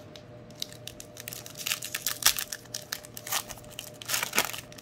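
Foil wrapper of a 2020 Panini Playbook football card pack being torn open and crinkled by hand. It makes a run of sharp crackles that bunch up about two seconds in and again near the end as the cards are drawn out.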